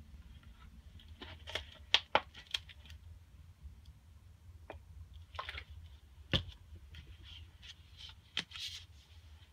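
Plastic water bottle and containers handled on a tabletop: a cluster of sharp clicks and taps, a short trickle of water poured into a glass jar, and a single heavier knock about six seconds in as a container is set down, then more clicks and rustle as a plastic salt tub is picked up.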